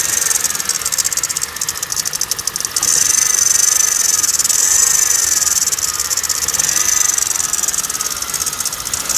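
2009 Kia Cerato engine running with a rapid knock in the engine. About three seconds in it grows louder, with a steady high hiss over the knock.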